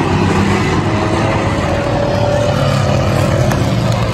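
Several race car engines running loudly as the cars circle the track, one engine note climbing slowly as it accelerates.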